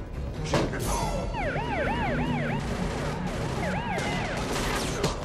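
An emergency-vehicle siren yelping in quick rising-and-falling sweeps, in two short runs, over a steady low rumble. Two sharp crashes come about half a second and a second in.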